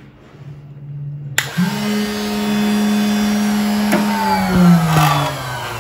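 An electric motor on a homemade CNC router, switched on at the power strip: it starts suddenly about a second and a half in and runs with a steady hum and whine, then its pitch falls near the end as it spins down.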